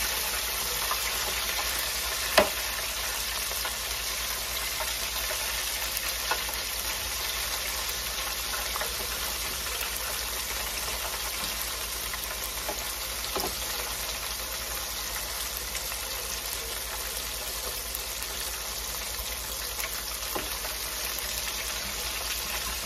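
Flour-coated croaker fish sizzling steadily in the hot oil of an electric deep fryer, not yet cooked through. There is one sharp click about two seconds in and a few softer taps later as metal tongs turn the pieces against the wire basket.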